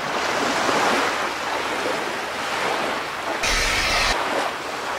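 Intro sound effects: a steady rushing noise like ocean surf, cut through about three and a half seconds in by a short, sudden burst of TV-static hiss with a low hum under it.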